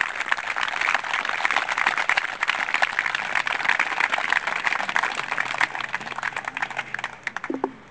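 A crowd applauding, the clapping thinning out and dying away near the end.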